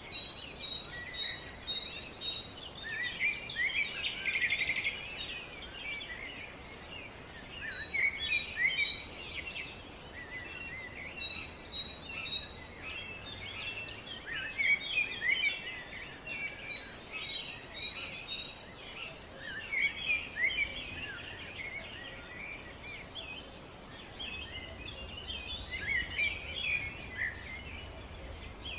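Songbirds chirping and calling, many quick overlapping notes, with runs of short high pips repeated several times a second.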